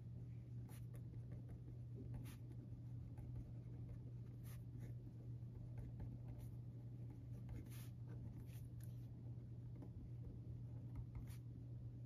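Pen writing on a sheet of paper on a desk: faint scratching strokes in short, irregular bursts, over a steady low hum.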